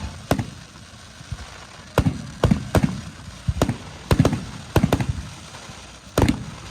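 Aerial firework shells bursting overhead: about ten sharp bangs at irregular intervals, several coming in quick pairs, each with a short rumbling tail.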